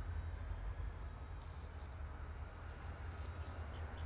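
Diesel-electric locomotives running with a low, steady rumble as the train approaches slowly. A few short high chirps sound above it from about a second in.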